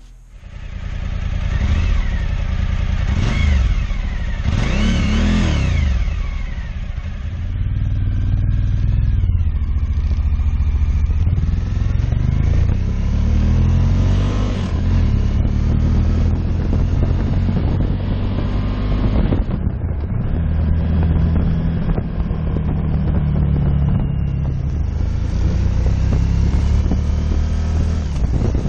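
Suzuki V-Strom 1000's V-twin engine heard through its exhaust. It is blipped sharply three times in the first few seconds, then idles steadily with a few slower rises in revs.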